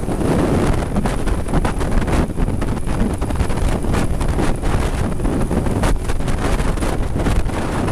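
Wind rushing steadily over the microphone of a camera on a Suzuki B-King motorcycle riding at road speed, with the bike's engine running under the wind.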